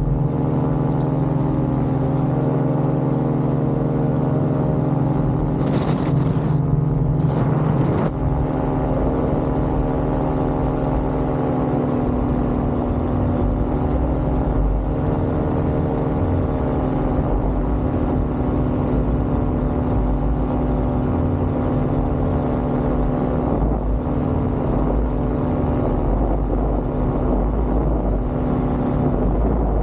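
Paramotor trike's engine and propeller running steadily in flight, with a slight shift in pitch about eight seconds in.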